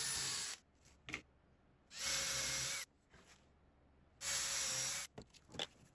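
Makita 18V cordless drill boring holes through steel hinge plates into plywood, in three short bursts of about a second or less each, with brief silences between.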